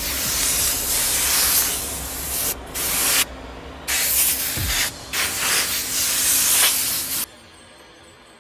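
Loud spraying hiss in several bursts with short breaks between them, cutting off sharply about seven seconds in.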